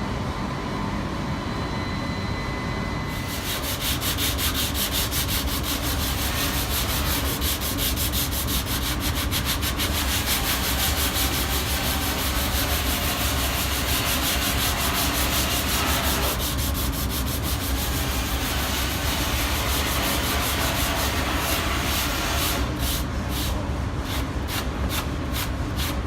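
Sanding on a car's bodywork: a steady, fast rasping that turns into regular back-and-forth strokes, about two a second, near the end.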